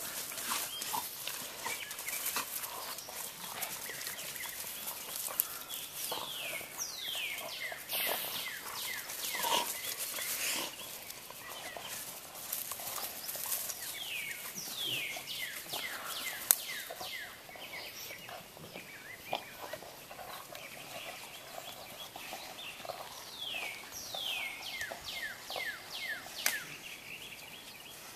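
Dogs playing with sticks on grass: scattered rustling, clicks and snaps of sticks and paws. Three times, about ten seconds apart, a run of quick whistled notes that each fall in pitch.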